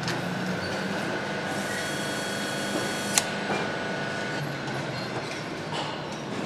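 Factory machinery running: a steady mechanical clatter with a high whine through the middle and scattered ticks, and one sharp click about three seconds in.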